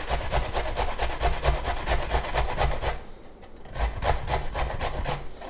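Fresh ginger root being grated on a metal box grater: quick rhythmic rasping strokes, about five a second, with a short pause about three seconds in before the strokes start again.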